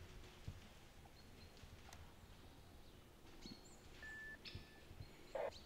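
Quiet woodland with a few faint, short, high bird calls, and one brief louder sound near the end.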